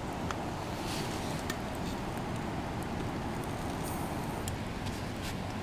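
Wood campfire burning, a few sharp crackles over a steady low rush.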